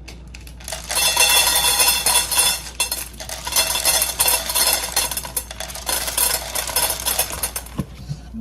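Automatic pet feeder dispensing dry kibble: a rapid, dense rattling and clattering as the pieces drop into its stainless steel bowls. It starts about a second in, with a brief lull around three seconds in.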